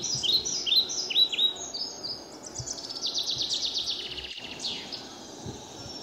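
Small birds singing: a run of quick high chirps, then a fast trill about three seconds in.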